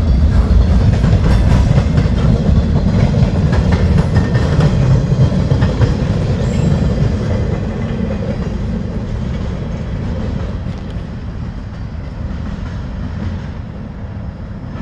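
Freight train's container-carrying flatcars rolling past on the track, a low rumble that fades steadily as the train moves away.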